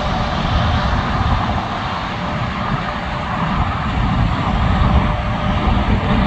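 Steady noise of freeway traffic, cars and trucks passing.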